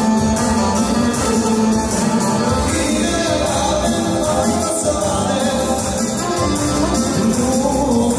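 Albanian dance music with a singing voice and percussion, playing loudly and without a break.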